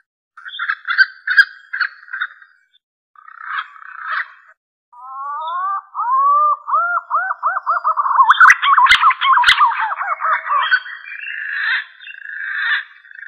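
Green pigeon (punai) calling, a hunting lure call: a few short rough bursts, then from about five seconds in a long run of whistled notes that rise and fall, coming faster. Two sharp clicks sound near the nine-second mark.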